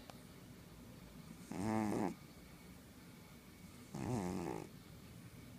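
A domestic cat snoring in her sleep: two pitched snores about two and a half seconds apart, each about half a second long.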